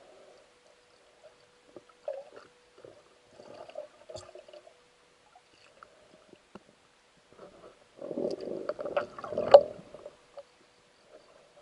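Muffled underwater sounds picked up through a camera's waterproof housing: scattered soft knocks and gurgles of water, with a louder churning stretch and a sharp knock about eight to nine and a half seconds in. A faint steady tone runs underneath.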